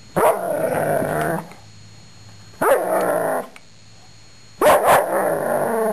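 Airedale terrier giving three drawn-out, pitched barks, each about a second long with a short pause between them.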